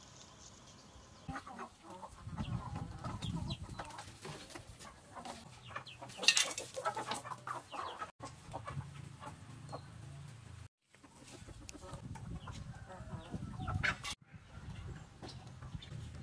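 Free-range chickens clucking as they forage on dirt ground, in short takes that cut off suddenly a few times.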